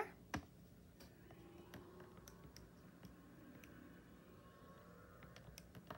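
A TI-84 Plus graphing calculator set down on paper with one sharp knock, then its keys pressed one at a time in faint, irregular clicks as an expression is typed in.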